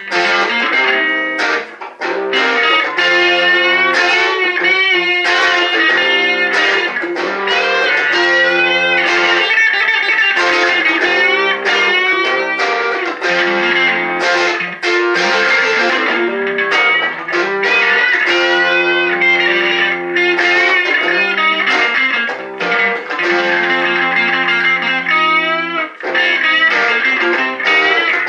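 Electric guitar played solo, a lead line of held notes that bend and waver in pitch.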